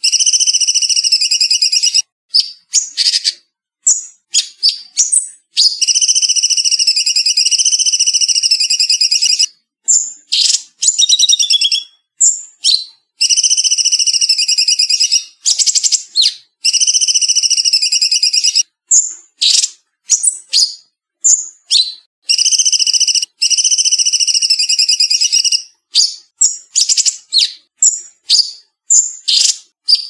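Cucak cungkok singing: long fast-trilled phrases of two to four seconds each, several pitches sounding together, alternating with clusters of short sharp chirps. The song is cleanly edited, with dead silence between phrases and no background noise.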